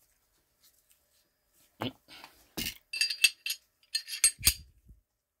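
Short metallic clicks and clinks from a Glock 29 pistol's slide and recoil spring assembly as the spring is fitted into the slide during reassembly. About two seconds in, a quick run of sharp, ringing clinks begins.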